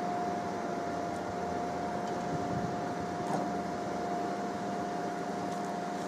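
Truck-mounted knuckle-boom crane on a Scania truck working a lift: a steady mechanical hum with one constant high whine running through it, and a couple of faint clicks.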